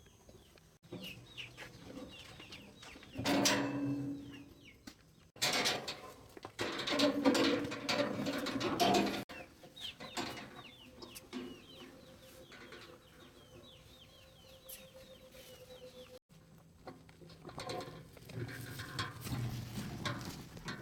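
Chickens clucking and calling in several separate stretches, loudest in the first half.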